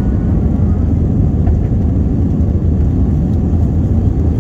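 Steady, loud low rumble of an Airbus A320-232's engines and airflow, heard inside the passenger cabin.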